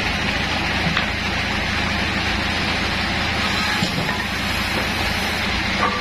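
Bandsaw sawmill machinery running steadily, with a few short knocks as a dry log is handled onto the mill's carriage.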